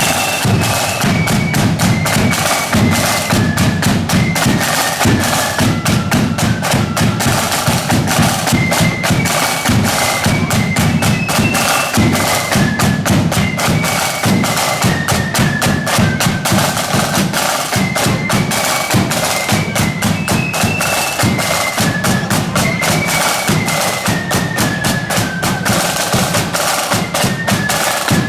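Marching band playing a tune: a high melody line over fast, dense snare drumming and a steady bass drum beat.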